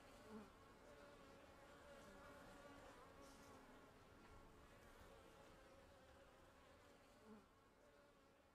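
Faint, steady hum of a honeybee colony, slowly fading, with two brief louder buzzes, one about half a second in and one near the end.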